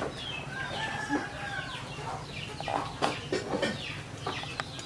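Birds calling in short falling chirps, several a second, over a low steady background hum.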